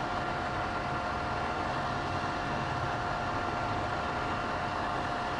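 Steady background hum of a running machine, with a faint whine held on one pitch and no change throughout.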